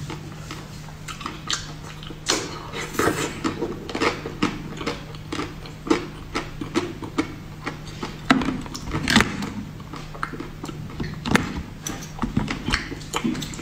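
Close-up chewing and wet mouth sounds of eating a soft, grape-shaped taro jelly dessert with a cream filling: many small irregular clicks and smacks, a few sharper ones. A metal spoon scoops the next piece near the end, over a faint steady hum.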